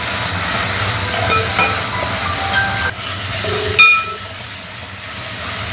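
Onion, tomato and green masala sizzling as they fry in oil in an aluminium pan, stirred with a metal spatula that scrapes and clinks against the pan a few times. A sharp clink about four seconds in is the loudest, and the sizzle dips briefly after it.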